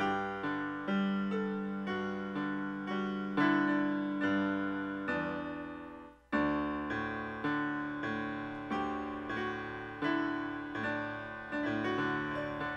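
Solo piano music: gentle single notes and chords struck and left to ring. It breaks off about halfway and starts again a moment later.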